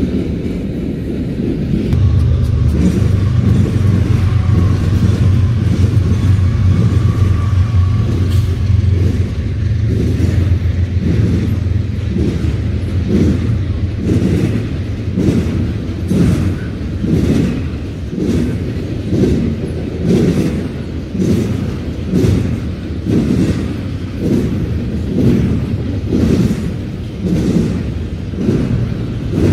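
Double-stack intermodal freight train rolling past. A steady low rumble for the first several seconds gives way to a rhythmic clickety-clack of wheels over rail joints, a little more than one clack a second.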